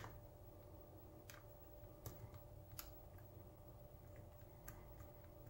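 Faint, sparse clicks of a hook pick setting and probing the pins inside a six-pin challenge lock cylinder under a tension wrench: one sharper click at the start, then a handful of fainter ticks spaced a second or so apart.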